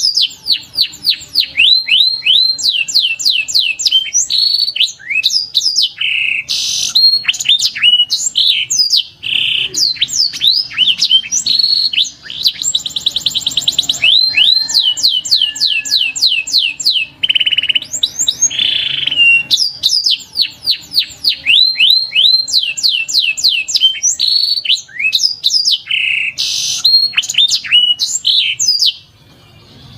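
Canary singing a long song of rapid, repeated down-slurred notes in quick runs, with a fast buzzy trill about halfway through. The song breaks off just before the end.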